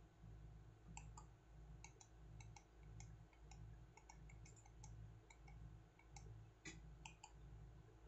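Faint, irregular clicking of the small tactile push buttons on a digital timer relay board as they are pressed to set the time, over a low steady hum.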